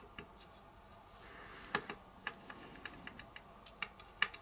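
Faint, irregular light clicks and taps of small parts of a cassette deck's front panel being handled and fitted by hand.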